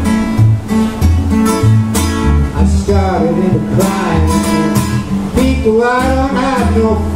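Two acoustic guitars playing a steady, bass-heavy rhythm, with a man singing over them in two phrases, from about three seconds in and again about five and a half seconds in.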